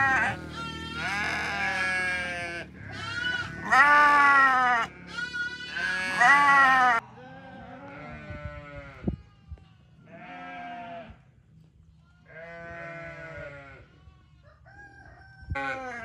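Sheep and lambs bleating: loud overlapping calls over a low engine hum for the first seven seconds, then the sound changes abruptly to a few fainter, separate bleats about a second long each.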